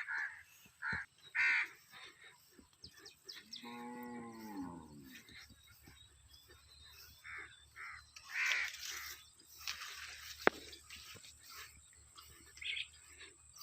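A cow moos once, a single call about four seconds in. Crows caw repeatedly before and after it, and a sharp click comes about ten seconds in.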